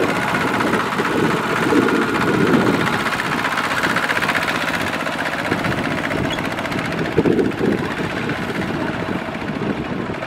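Two-wheel walking tractor's single-cylinder diesel engine running with a fast, steady chug as it pulls a trailer loaded with rice sacks, growing slightly fainter toward the end.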